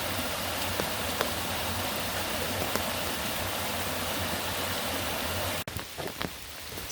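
A steady rushing hiss of water with a few drop ticks. About five and a half seconds in it cuts off abruptly to a quieter patter of separate raindrops hitting a surface.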